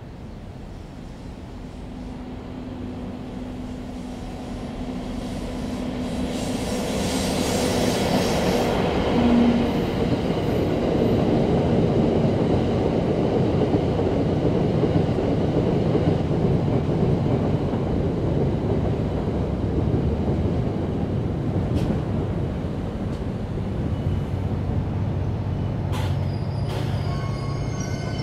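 An EF64 electric locomotive hauling the Cassiopeia sleeper coaches passes, growing steadily louder with a steady hum as it nears. The locomotive goes by about eight seconds in with a rush of hiss, then the long rake of coaches rolls past with a continuous rumble of wheels on rail, and a couple of sharp clicks come near the end.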